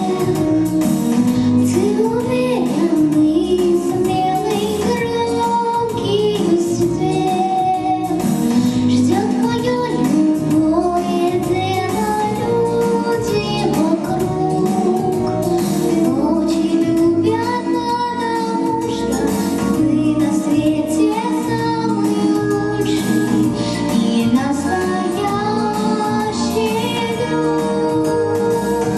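A girl singing a song into a handheld microphone with instrumental accompaniment, amplified through a PA speaker.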